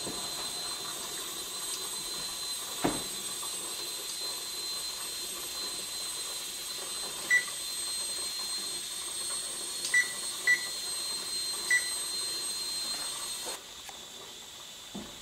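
Electronic beeps from a kitchen range's control keypad, four short beeps as a timer is set, over a steady hiss from the stove and pressure canner. The hiss drops away near the end.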